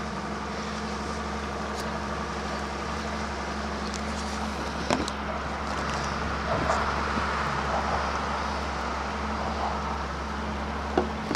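Fishing boat's outboard motor running steadily, a constant engine hum, with a light knock about five seconds in.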